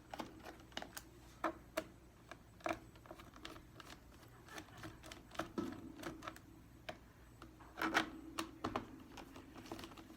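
Small Phillips screwdriver backing out the screws of a Chromebook's plastic bottom cover: irregular light clicks and short scrapes of the driver bit and screws against the plastic case.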